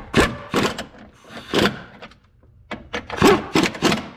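A series of sharp knocks and clunks, about seven in four seconds, of hand tools and metal parts being handled and set down during reassembly work on a car's engine bay.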